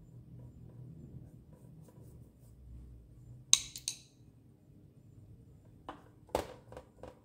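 Two quick, bright clinks about halfway through, as the paintbrush is knocked against a hard dish, then a few softer knocks near the end, over faint brushing on paper.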